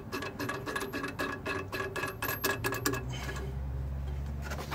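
Rapid light metallic ticking as a nut is turned by hand on a bolt fitted through a lathe faceplate slot, stopping about three seconds in. A low steady hum comes in as the ticking stops.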